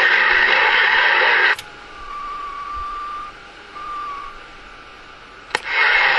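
CB radio receiver static: a loud, even hiss cut off by a sharp click. In the quieter gap a steady whistle-like tone sounds twice. Another click near the end brings the loud hiss back.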